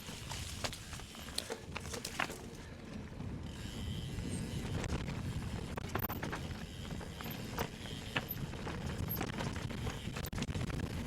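An electric mountain bike riding over a forest trail: a steady low rumble of tyres and air with scattered clicks and knocks from the bike over roots and stones.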